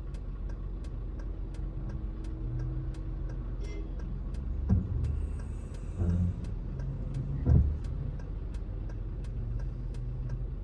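Car cabin sound while stopped in traffic: a steady low engine hum with an even, fast ticking about three times a second. Three short low thumps come a little under halfway through and past the middle.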